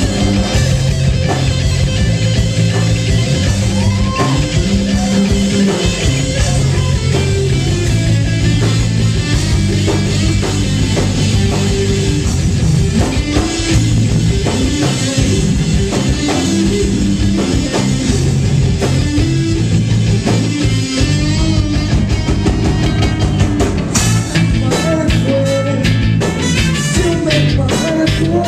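Live rock-reggae band playing: electric guitar and drum kit over moving low notes, loud and steady throughout.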